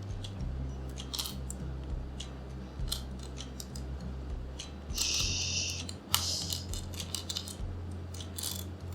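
Clear plastic jigsaw puzzle pieces being pulled apart and handled: scattered light clicks, with a short scraping rustle about five seconds in, over a low steady hum.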